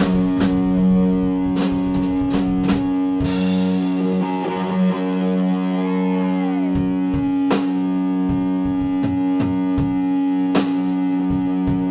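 A rock band plays an instrumental passage: a sustained, droning guitar chord rings under scattered drum and cymbal hits, with no singing.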